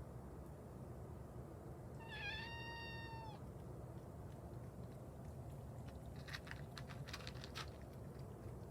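A cat gives one drawn-out meow of about a second and a half, held at an even pitch. Later come a few faint short clicks or rustles.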